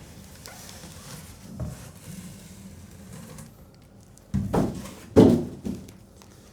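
Cardboard monitor box and packing being handled and moved aside: a light sliding and scraping, then two dull thumps about a second apart as it is set down.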